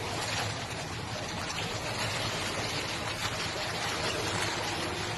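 Pool water splashing and lapping steadily around a small dog paddling.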